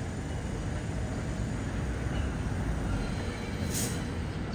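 Steady low rumble of a subway train moving slowly through the rail yard, mixed with the city's background noise, with a short sharp hiss near the end.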